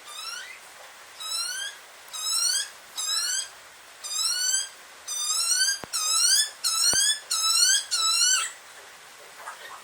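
A bird giving a series of short, squeaky, rising whistled calls, about one a second at first, then coming closer together and louder before stopping about a second before the end.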